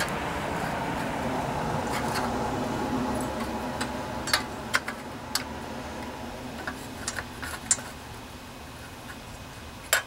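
Light metal clicks and taps as a steel bracket and the spark plug wire are fitted over the cylinder head bolts of a Briggs & Stratton engine, about six sharp clicks from about four seconds in. Under them a steady background hum fades away over the first several seconds.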